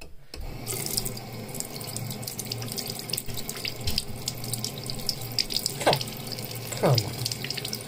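Tap water running into a bathroom sink, turned on suddenly at the start and splashing steadily in the basin. Two short gliding squeaks cut through it about six and seven seconds in.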